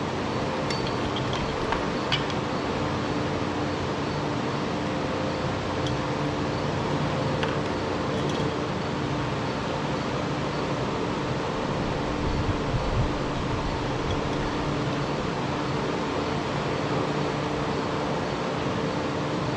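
Steady mechanical hum, like a running fan, with a few faint clicks of small parts being handled.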